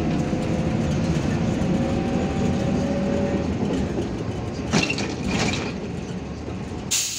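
Inside a MAN Lion's Classic city bus on the move: engine and drivetrain running with a steady whine in the first few seconds, getting quieter in the second half. Two short hisses come about five seconds in, and a sharper hiss near the end.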